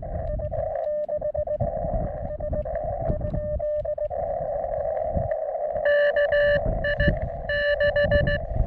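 Morse code (CW) coming through a portable ham radio receiver: a mid-pitched tone keyed in dots and dashes over narrow-filtered receiver hiss. The signal is faint at first, and from about six seconds in a much louder, buzzier station keys in.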